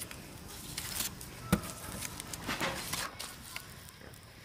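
Rustling and handling noises with small clicks and one sharp knock about one and a half seconds in.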